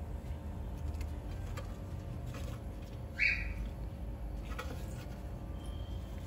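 One short, high-pitched chirp about three seconds in, over a low steady hum and a few faint light clicks.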